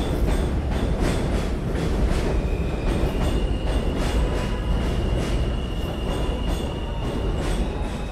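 New York City subway train running past on the elevated line, its wheels clattering over the rail joints above a heavy rumble. A high steady whine joins in about two and a half seconds in and fades near the end.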